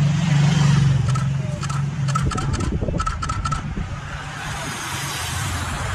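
An escort motorcycle's engine running steadily as it rides past, loudest in the first second and fading out about two seconds in. There are short metallic jingles now and then. About four and a half seconds in, a group of racing bicycles passes on the wet road with a rising hiss.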